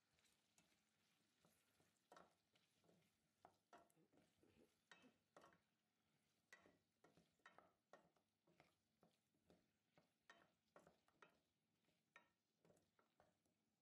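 Faint clatter of a wooden spoon stirring chunks of potato, carrot and onion in a stainless steel pot: a run of short knocks and scrapes, about two or three a second.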